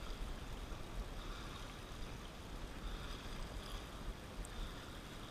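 Steady rush of wind on the microphone with a low rumble, over small waves washing against the breakwall rocks.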